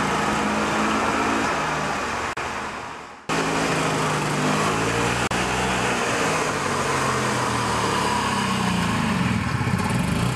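Freshly rebuilt Robin EC25 single-cylinder two-stroke golf-cart engine running as the cart drives. The sound fades away until it cuts off abruptly about three seconds in, then returns at full level, with the engine's pitch dipping and rising near the end.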